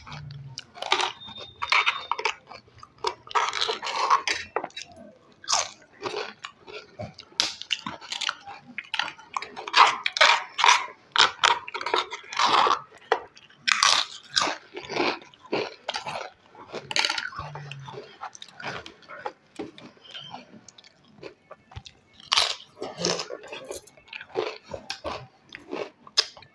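Crisp fried aloo papad (potato wafer) being snapped by hand, bitten and crunched while chewing. Clusters of sharp crunches run through, thinning out for a few seconds past the middle.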